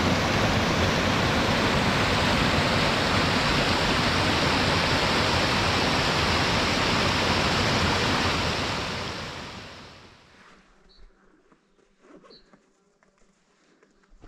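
Rushing water of a small mountain creek cascading over rocks, a steady loud rush that fades out about nine to ten seconds in. It leaves quiet with two faint, short, high chirps.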